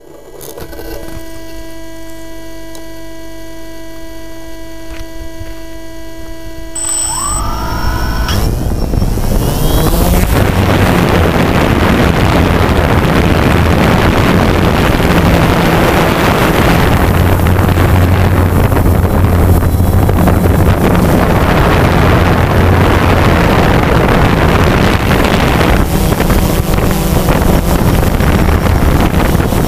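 DJI Phantom 2 quadcopter's four motors and propellers heard from its onboard camera: a steady whine at low speed, then about seven seconds in a rising whine as they spin up for takeoff. After that comes a loud, even rush of propeller noise with wind on the microphone.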